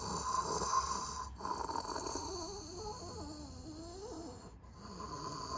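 Snoring, long drawn-out snores with a wavering pitch, broken briefly about a second and a half in and again near the end.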